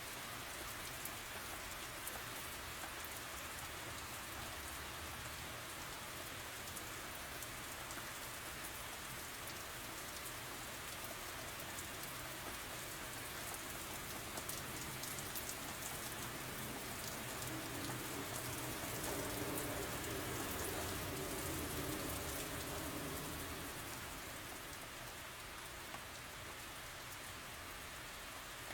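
Steady rain falling, growing a little louder about two-thirds of the way through.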